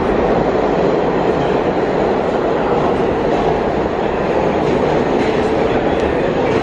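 New York City subway train running through the station, loud and steady.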